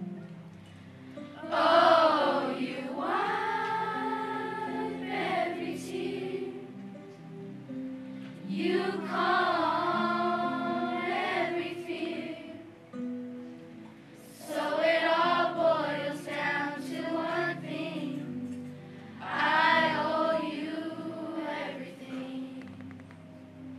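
Children's choir singing in four phrases with short gaps between them, over a quieter steady accompaniment that carries on underneath.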